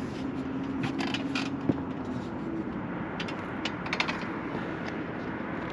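Scattered light clicks and taps of small hardware or tools being handled, over a steady low hum.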